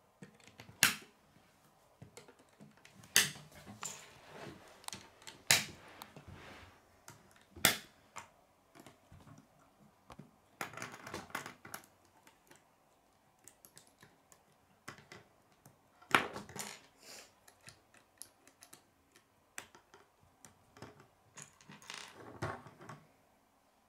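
Plastic K'nex rods and connectors snapping and clicking together as they are assembled by hand: several sharp snaps a few seconds apart, with quieter clicks and rattling of the pieces in between.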